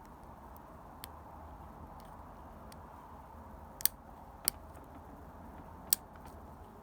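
Picking a Master Lock 3SSKADLF padlock with a tension wrench and hook pick: a few sharp clicks as the pick works the pins, a faint one about a second in and three louder ones near four, four and a half and six seconds, over faint steady background noise.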